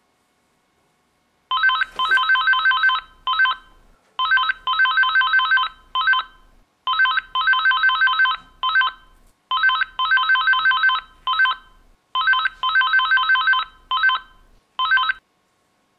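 A mobile phone's ringtone ringing: a fast electronic melody of quick, bright notes, played through five times before it stops near the end.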